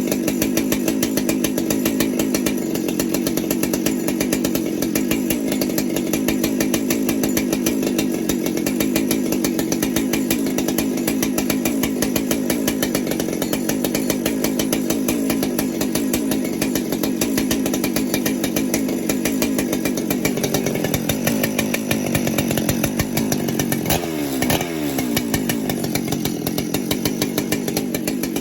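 Ported Husqvarna 395XP two-stroke chainsaw running steadily on a bench test just after reassembly, with a brief dip and recovery in engine pitch about 24 seconds in.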